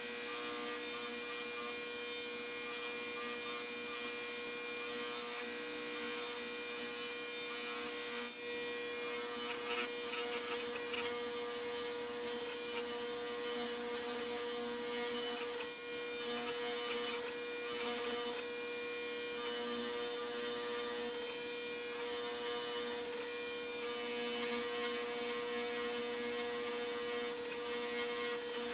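A bench grinder's electric motor runs with a steady hum, spinning a soft carding wheel (a fine wire wheel). From about nine seconds in, rust-blued rifle steel is pressed against the wheel, adding an on-and-off scratchy brushing as the wheel cards off the loose rust.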